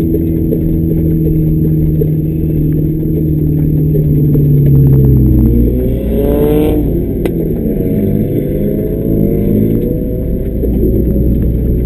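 Scion FR-S's flat-four engine, heard from inside the cabin, revving and changing pitch through a drift. Its note drops about five seconds in, and a brief rush of noise follows just after.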